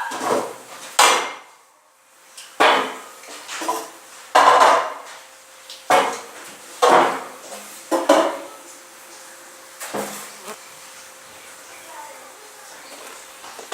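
Floor being cleaned on a wet floor: a string of separate noisy strokes about one a second, fewer and quieter after about ten seconds.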